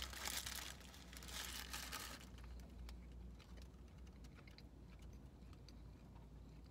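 Paper burger wrapper crinkling for about two seconds as a bite is taken, then faint clicks of chewing a mouthful of cheeseburger.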